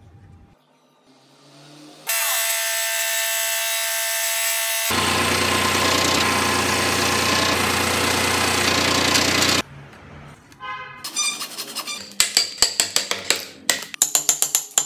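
A power tool cutting wood runs loud and steady, starting suddenly about two seconds in, deepening about halfway through, and cutting off abruptly. Near the end, a rapid run of sharp knocks, several a second, as a chisel chops the block into pieces.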